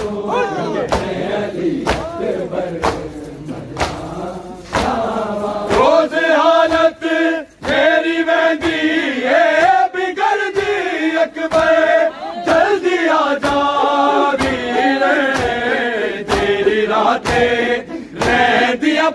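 Men chanting a Punjabi noha, a Shia lament, together, with regular sharp hand slaps on bare chests (matam) keeping time about once a second. The chanting swells about six seconds in.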